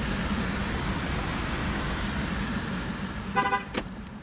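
2018 Chevrolet Malibu's engine idling with a steady hiss of ventilation fan noise. About three seconds in comes a brief horn chirp, followed by a couple of sharp clicks.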